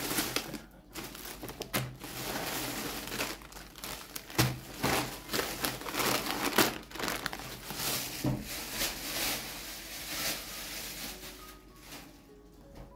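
Plastic packaging crinkling and rustling in irregular bursts as groceries are handled and unpacked, fading near the end.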